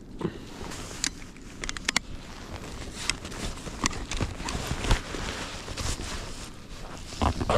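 Footsteps crunching in deep snow, irregular crunches about once a second, over a low rumble of wind on the microphone.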